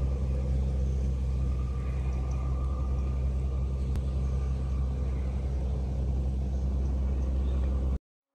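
A steady low drone like an engine running, holding an even level, that cuts off suddenly near the end.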